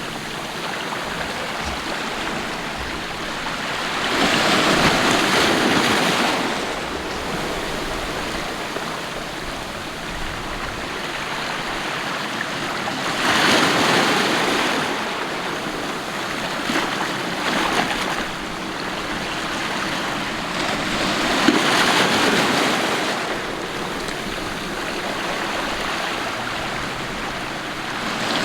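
Sea waves washing in: a steady hiss of moving water with a louder surge about every eight seconds.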